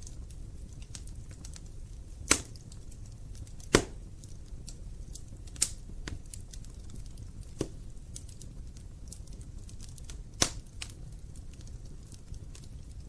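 Wood fire burning in a fireplace: a steady low rumble of flames with constant small crackles and five loud sharp pops of burning logs.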